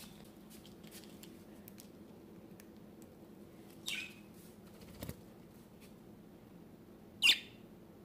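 Budgerigar giving two short, sharp chirps about three and a half seconds apart, each falling in pitch, the second louder. A soft knock falls between them.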